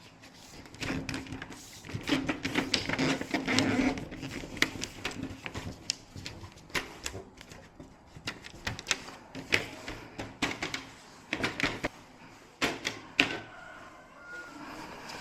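Irregular sharp clicks and taps of hand work with small tools and parts, with a low hum between about one and four seconds in.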